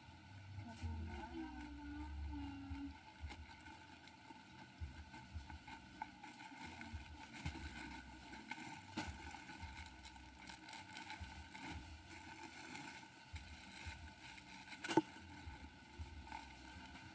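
Faint handling noises of items being sorted, with small scattered clicks over a low, uneven background rumble, and one sharp click about 15 seconds in.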